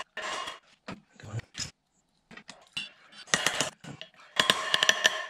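Metal clinks, knocks and scrapes with some ringing as a new universal joint's bearing caps are worked into a driveshaft yoke, near the limit of their travel and a little tight; near the end comes a longer dense stretch of metallic noise.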